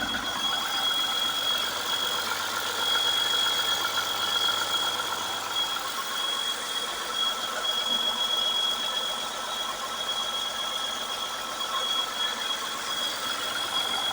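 Freshly assembled Cummins C-series inline-six diesel engine running steadily, with a constant high-pitched whine over the engine noise.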